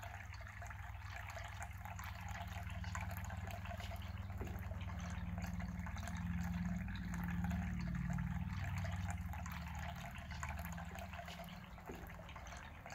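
Small tiered tabletop fountain: water trickling steadily from its spout into the basins below, with a low steady hum underneath that swells a little midway.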